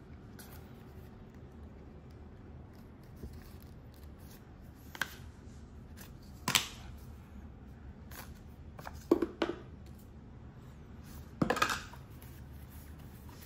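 Unboxing handling noise: a handful of short, sharp clicks and snaps of packaging and camera gear, a second or more apart.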